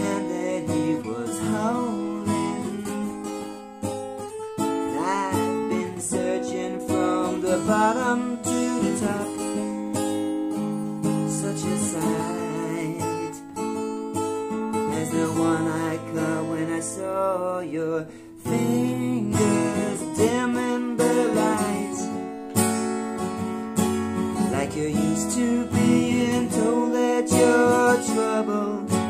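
Acoustic guitar strummed in chords, with a man's voice singing over it in places.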